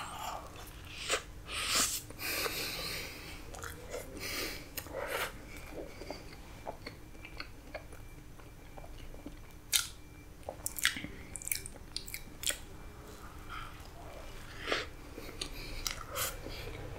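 A big bite into a slice of soft black forest cake with whipped cream, then chewing, with wet mouth clicks and smacks. The sounds are densest in the first few seconds, then come scattered.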